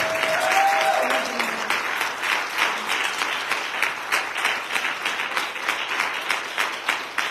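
Congregation applauding, a sustained hand clap of praise of many hands clapping fast and unevenly, with a brief voice calling out about a second in.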